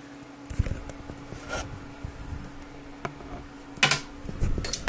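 Hard plastic clicks and knocks from handling a Tiko 3D printer's plastic housing. A sharper click comes about four seconds in as the top lid comes off the body. A faint steady hum runs underneath.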